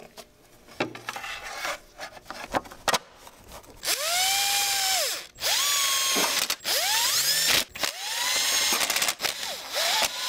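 Cordless Milwaukee M12 driver running in the spark plug cover bolts in several short runs, starting about four seconds in. Each run's motor whine rises, holds and then falls away. Before the runs, light clicks of the bolts and socket being handled.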